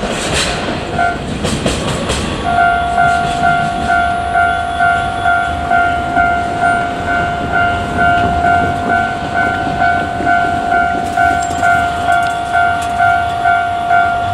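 The last of a container freight train clattering over the rails for the first couple of seconds. Then a Japanese level-crossing warning bell starts and rings steadily, a bit under two strikes a second, to the end.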